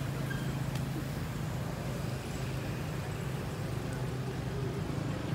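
Steady low hum of an engine running.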